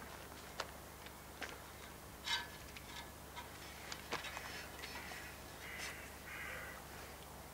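Faint scattered clicks, ticks and a soft scrape as a bow is handled and drawn to measure its draw weight, with one sharper click a couple of seconds in.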